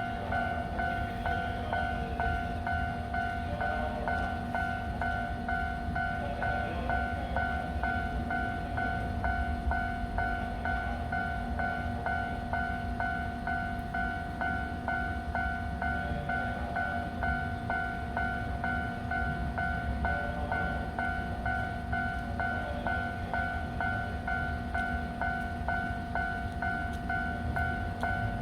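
Japanese level-crossing warning bell ringing in a rapid, unbroken two-tone rhythm, over the low steady hum of an E353 series electric train standing still. The crossing stays active because the train has made an emergency stop at it.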